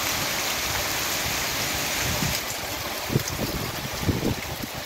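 Heavy rain falling steadily, with a thick stream of runoff pouring from a roof gutter and splashing onto a concrete cistern lid.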